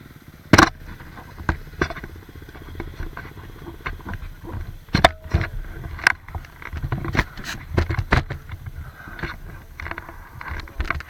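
Irregular knocks and scrapes of an action camera and its mount being handled and moved about, the loudest about half a second in and again about five seconds in. A motorcycle engine idles underneath.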